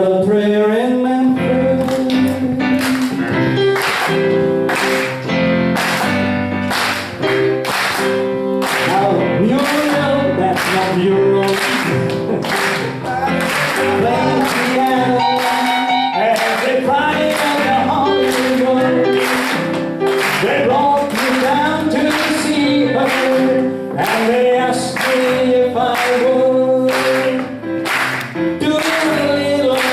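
A vocal group singing a song with instrumental accompaniment, over a steady beat of about two strokes a second.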